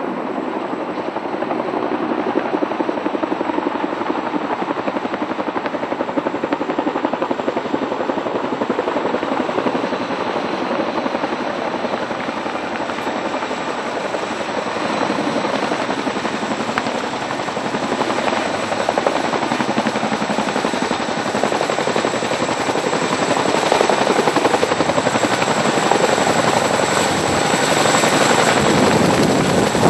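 Tandem-rotor CH-47 Chinook helicopter running, a steady rotor and turbine din that grows louder over the last several seconds.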